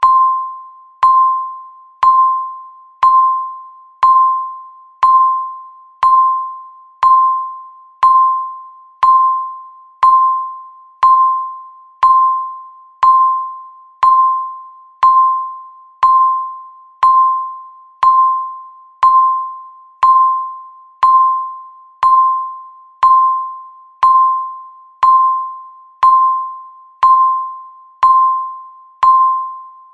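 Countdown timer beep sounding once every second, a single clear electronic tone that starts sharply and fades away before the next, marking each passing second.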